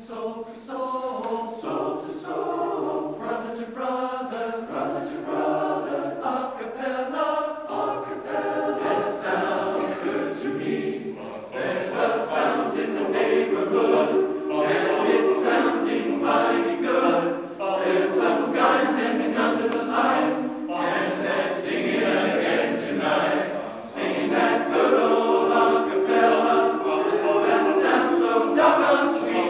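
Men's choir singing a cappella in close harmony, growing fuller and louder about twelve seconds in.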